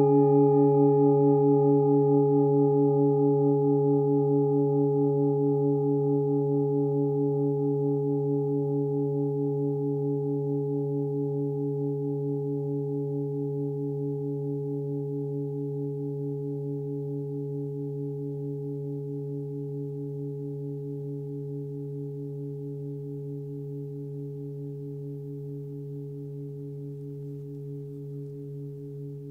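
A 23.5 cm hand-forged Nepalese singing bowl tuned to D (143 Hz) ringing on after a strike. Its deep hum and higher overtones waver slowly and fade steadily.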